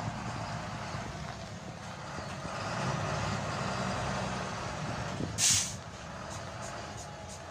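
Large coach's diesel engine idling steadily, with a short, loud hiss of released compressed air from its air brakes about five seconds in.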